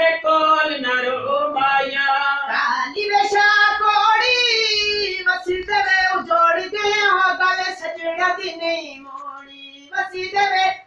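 A high-pitched voice singing a Punjabi folk song in long, ornamented phrases; near the end one low note is held steady for about a second before a brief break.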